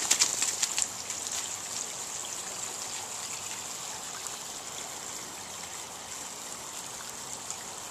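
A wet dog shaking itself off, water spattering for about the first second, then a steady trickle of water from a running garden hose.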